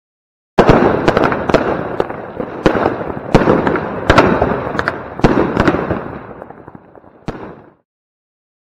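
Firework battery (Blackboxx Knallbär cake) firing: dense crackling with about ten sharp bangs, starting suddenly about half a second in, then dying away and stopping about a second before the end.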